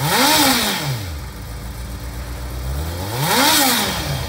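2009 Honda CBR600RR's fuel-injected 600cc inline-four idling, blipped twice on the throttle. The revs rise and fall within about a second at the start, and again about three seconds in.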